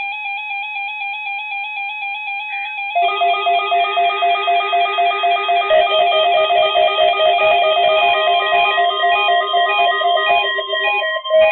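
Several NOAA weather radio receivers sounding their alert alarms together: one rapidly pulsing electronic beep at first, with more receivers' beeping tones joining about three seconds in and again near six seconds, layering into a dense beeping.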